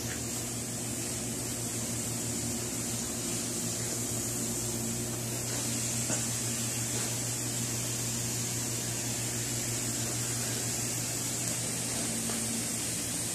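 Steady mechanical hum at an even pitch with a high hiss over it, unchanging throughout, and a faint knock about six seconds in.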